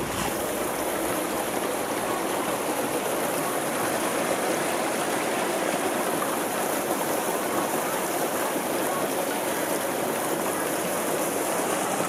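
Stream water running steadily, a continuous even rush.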